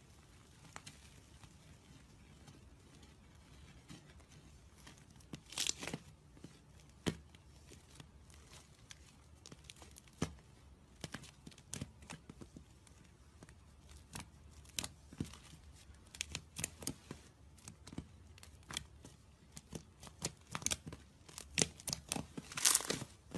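Slime being squeezed and stretched by hand, giving off irregular sticky crackles and small pops. The crackles come in louder clusters about five seconds in and again near the end.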